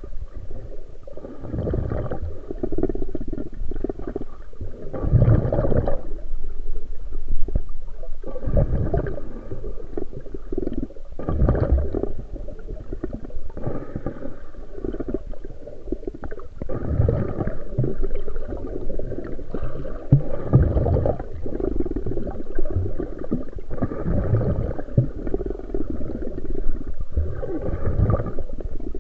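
Black Sea waves surging and washing in, one swell every two to three seconds, with a low rumble underneath.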